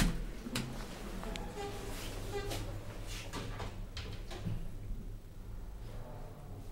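A sharp knock at the start, then clicks and rattles as the Schindler elevator's sliding doors open.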